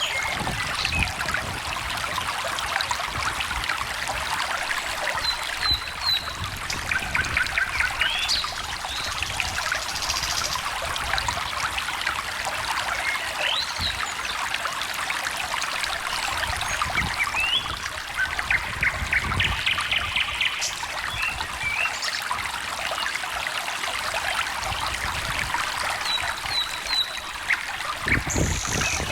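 A small stream trickling steadily, with birds giving short chirps and a few quick trills now and then over the water.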